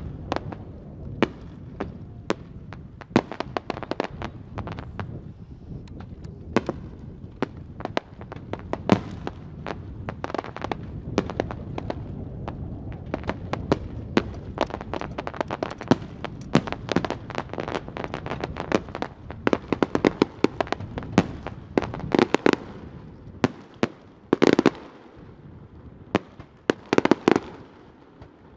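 Aerial fireworks display: a steady run of sharp bangs from bursting shells over a low rumble. Later on, the bursts come in separate clusters of rapid crackling pops.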